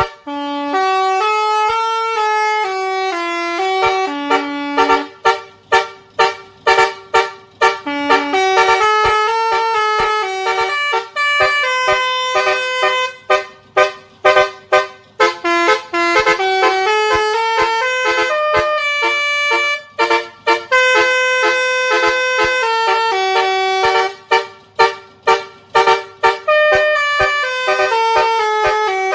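Basuri telolet bus horn playing a melody: multi-note horn tones stepping up and down in pitch, with held notes broken several times by runs of short, rapid toots.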